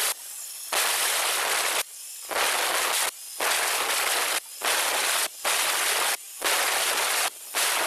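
Angle grinder with a cutting disc cutting into a rendered masonry wall: a loud, harsh grinding hiss that comes in repeated passes of about a second each, dropping quieter between them, about seven times.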